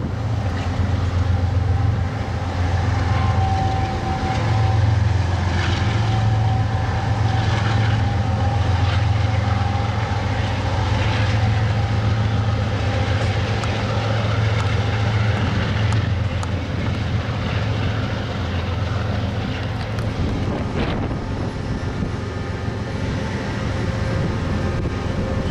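Freight train rolling past: a steady low rumble of diesel locomotives and cars, with scattered clicks and clanks of wheels on the rails and a faint high held tone in the first half.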